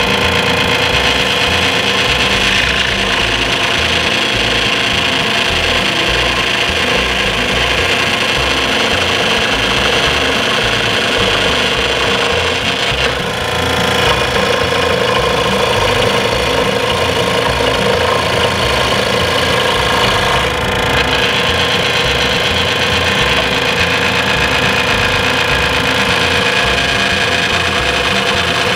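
WEN scroll saw running, its blade cutting arcs through a wooden CO2 car blank as the block is fed along the curve; a steady sawing sound that dips briefly a little before halfway and again about two-thirds through.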